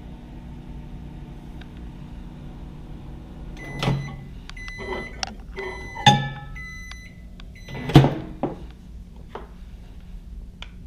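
Microwave oven running with a steady hum that stops about four seconds in. The oven then gives a string of short high beeps at the end of its cycle, over three loud knocks as the door is opened and the glass measuring cup of heated plastisol is taken out and set down.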